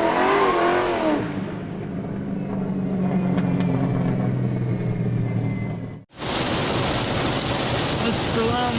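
Car engine revving, then running with a steady low hum. It cuts off abruptly about six seconds in, and a steady rushing noise follows.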